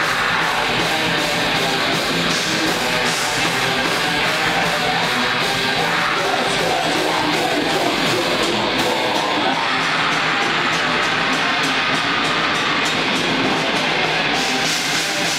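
Live heavy metal band playing loud: distorted electric guitars and bass over a drum kit, without a break.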